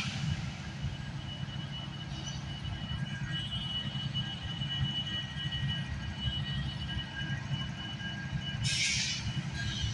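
Union Pacific 4413, an EMD SD70M diesel-electric locomotive, with its engine rumbling steadily at low speed. A steady high-pitched tone comes in about three seconds in, and there is a short burst of hiss near the end.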